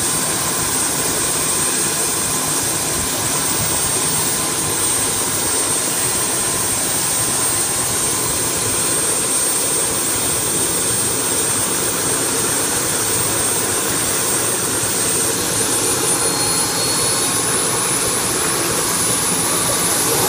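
Light turbine helicopter running on the ground: a steady turbine whine with a thin high tone over an even rushing noise. The tone climbs slightly in pitch over the last few seconds.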